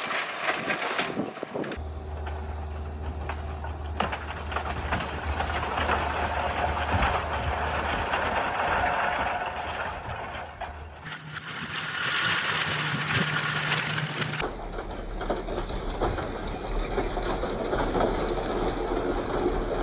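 Diesel excavator engine running while it demolishes a house, with repeated knocks and crunches of breaking material. The sound changes abruptly a few times.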